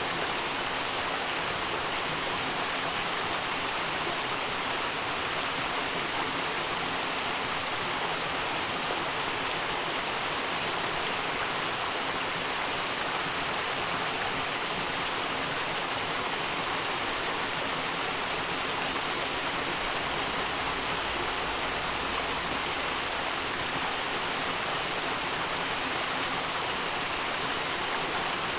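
A small wild mountain brook rushing steadily, the water making an even, unbroken hiss.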